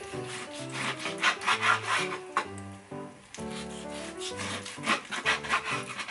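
Kitchen knife cutting through raw chicken thigh on a wooden cutting board: two runs of quick strokes, the blade rasping through the meat and knocking on the board, about a second in and again near the end. Soft background music plays underneath.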